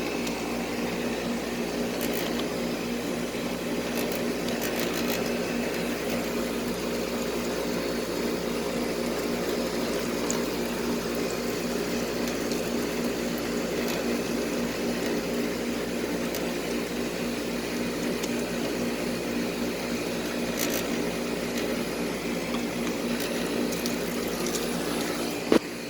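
Tempstar central air conditioner's outdoor condensing unit running: a steady compressor hum under the rush of the condenser fan blowing air through its freshly cleaned and straightened coils. A short knock sounds near the end.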